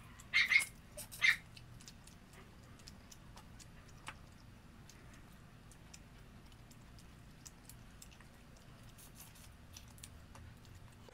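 A dog gives two short, high cries in the first second and a half. Then come faint scattered clicks of shrimp shells being peeled by hand, with quiet chewing.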